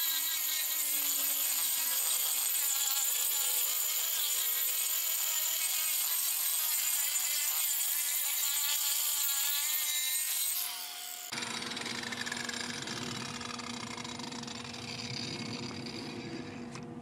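Angle grinder with a carving disc grinding the end grain of a round wood slab to flatten a chopping-block surface: a steady, high, rasping grind. About eleven seconds in it changes abruptly to a quieter, lower whir with a falling pitch as the grinder comes off the wood.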